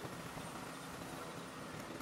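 Steady, even workshop background noise with a faint hum, and no distinct knocks or tool strikes.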